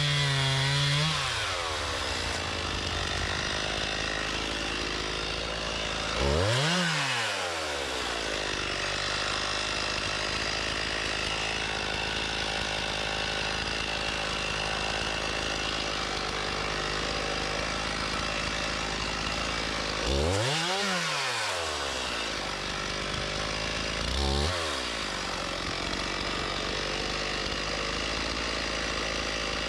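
Stihl MS 391 two-stroke chainsaw running steadily while bucking firewood. Its engine revs up and drops back once about a quarter of the way in, and twice more a few seconds apart later on.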